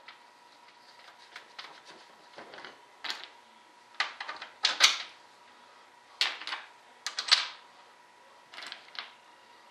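Loose metal washers and nuts clinking and clicking as they are handled, picked from a pile and set onto bolts: irregular sharp clicks and short jingling rattles, loudest about five seconds in and again a little after seven. A faint steady hum sits underneath.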